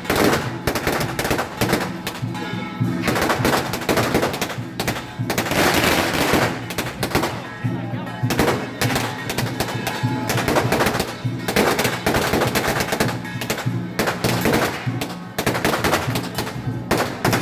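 Strings of firecrackers going off in rapid, dense volleys of cracks, with music playing underneath.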